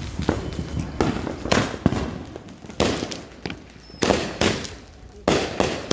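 Consumer firework cake firing a rapid series of shots, a sharp bang roughly every half second, each followed by a crackling tail as the aerial bursts break.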